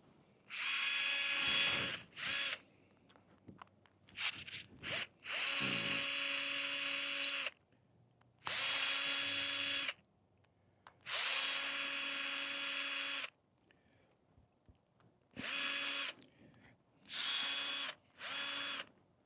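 Power drill running in repeated short bursts, about nine runs of up to two seconds each at a steady pitch, with pauses between them.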